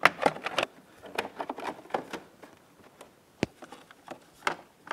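Scattered light clicks and taps of small parts being handled and fitted by hand around a motorcycle's ignition switch, with one sharper knock about three and a half seconds in.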